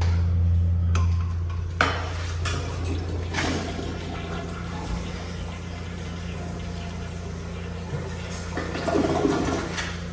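A restroom fixture flushing: a sharp click about two seconds in, then water rushing and refilling, swelling again near the end. A steady low hum runs underneath.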